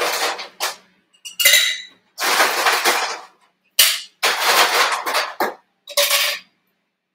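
Ice cubes clattering into a cocktail shaker in about five separate bursts, filling it to about half full.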